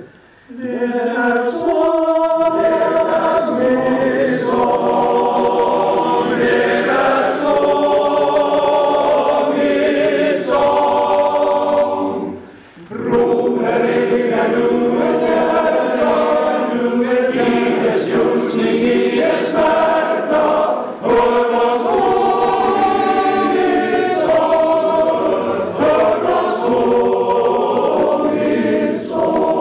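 Male choir singing a cappella. The singing comes in about half a second in and stops for a short breath pause about halfway through before going on.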